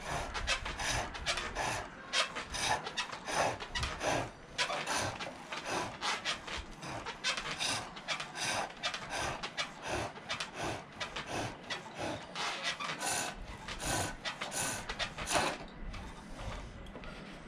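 Turning tool cutting green silver birch on a pole lathe: quick rhythmic scraping cuts, about two to three a second, each shaving taken as the treadle spins the work back and forth. The cutting stops near the end.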